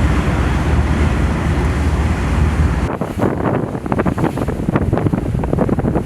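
Wind buffeting the microphone and water rushing past a boat at sea. About halfway through the sound changes abruptly to rougher, irregular rushes of water and spray.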